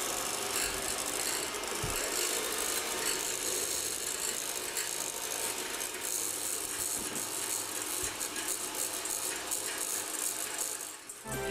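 Electric hand mixer running, its beaters rattling steadily against a stainless-steel bowl; the sound cuts off near the end.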